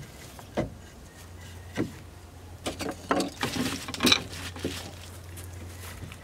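Pine shims and boards being handled and fitted against a wooden trailer frame: scattered knocks and clicks of wood on wood, with a short stretch of scraping and rubbing a little past the middle.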